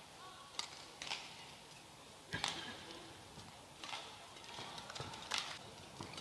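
Badminton rally: rackets hitting the shuttlecock in a string of sharp cracks about a second or more apart, five in all.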